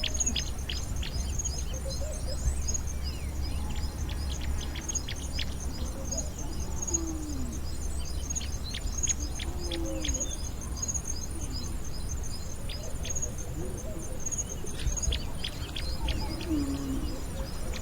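A chorus of birds calling, with many quick downward-sweeping chirps and a few low falling calls every couple of seconds. Under them run a steady high pulsing insect trill and a low rumble.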